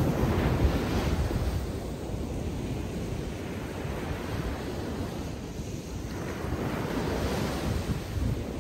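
Atlantic surf breaking and washing up the beach, louder about a second in and swelling again near the end, with wind rumbling on the microphone.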